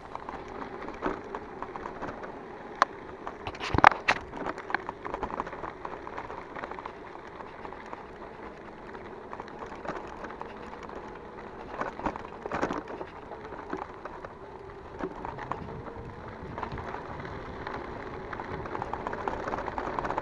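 Bicycle ridden along a dirt road: the tyres crunch and crackle on the gritty surface over a steady hum, with rattles and knocks from the bike, the loudest about four seconds in and another cluster around twelve to thirteen seconds.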